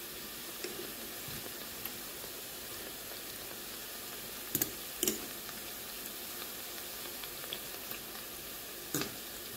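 Sesame-dough pastries deep-frying in a stainless-steel pan of hot oil: a steady sizzle, with a few sharp clicks about halfway through and near the end.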